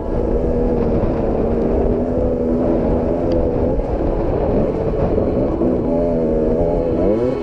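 KTM 250 XC-W two-stroke dirt bike engine running under way on a rough trail, its pitch shifting with the throttle, then rising as it revs up near the end. A low rumble runs underneath.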